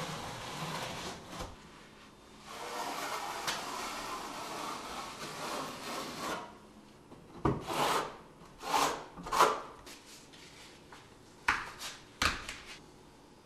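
Rubbing and scraping on fabric waterproofing membrane as a seam strip is pressed and smoothed into sealing adhesive on a wall by hand and trowel. There are a few seconds of steady rubbing, then several short swelling scrapes and two sharp ones near the end.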